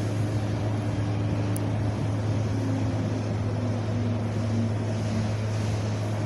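Wind blowing in a steady, even rush, with a constant low hum underneath.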